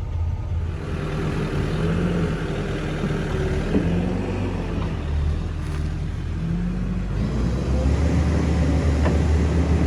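Tractor-trailer truck's diesel engine running, heard from inside the cab, its pitch rising and falling. It gets a little louder near the end.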